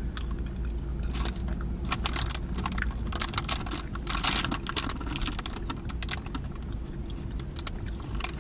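Paper napkins being crumpled and rubbed between the hands while wiping them clean, an irregular crinkling and crackling, busiest about four seconds in, over a steady low hum.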